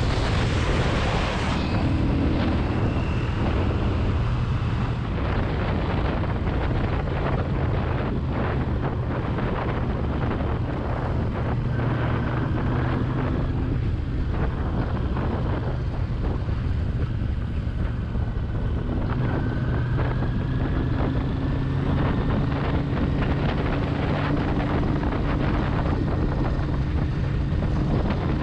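Motorcycle engine running steadily at road speed, with wind buffeting the microphone; the engine note rises slightly in the second half.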